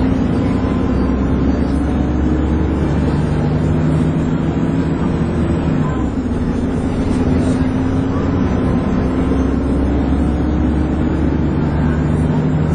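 Dennis Trident 2 double-decker bus running under way, with its steady whine, the vacuum-cleaner-like 'hoover' note. The pitch of the drone shifts about six seconds in and again near the end.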